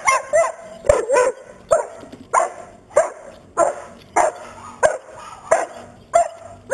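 White Swiss Shepherd dog barking repeatedly, about two barks a second, while harnessed and held waiting to start a bikejoring run.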